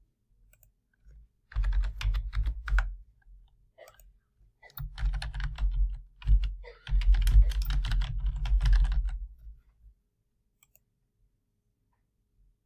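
Typing on a computer keyboard: a short burst of keystrokes about one and a half seconds in, then a longer run of rapid keystrokes from about five to ten seconds in.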